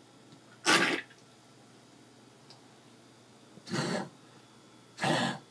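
Pug coughing from kennel cough: three short coughs, the loudest about a second in, then two closer together near the end.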